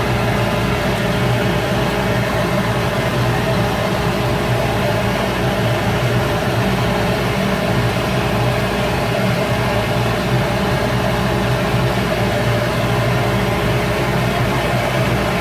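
Shop Fox W1836 midi wood lathe running at a steady speed: an even motor hum with a constant hiss over it.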